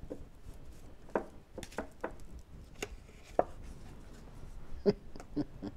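A deck of tarot cards being shuffled by hand: irregular light slaps and clicks of the cards against each other.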